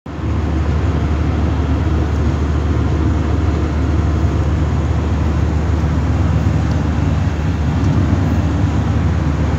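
Steady road noise inside a moving vehicle's cabin: tyre and engine drone, a deep rumble with a hiss above it.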